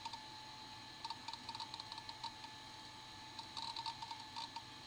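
The PC's 541 MB Conner IDE hard drive seeking while Windows 3 loads: bursts of quick, irregular clicks with a faint ringing tone, over the machine's steady hum.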